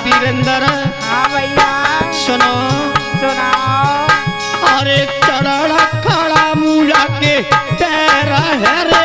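Instrumental passage of a Hindi devotional bhajan: a Roland E-X30 keyboard plays a melody with bending notes over a steady tabla rhythm.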